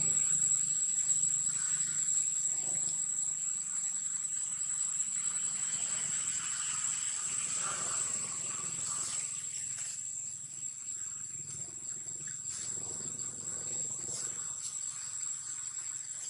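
Steady high-pitched drone of insects in the surrounding trees, unbroken throughout, with a few faint clicks near the end.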